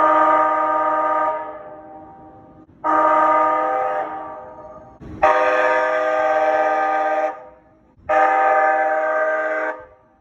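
Calgary CTrain light-rail vehicle horn sounding four separate blasts, each a steady chord of several tones lasting one to two seconds. The third blast is the longest, and the first two trail off slowly after they stop.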